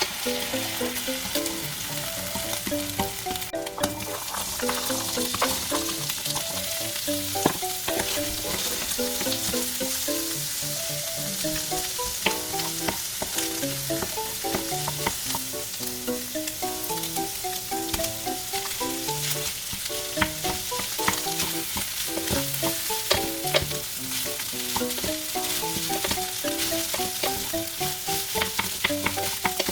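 Food sizzling in a hot frying pan as it is stirred, with frequent light clicks and scrapes of a utensil against the pan. A gentle melodic background track plays along.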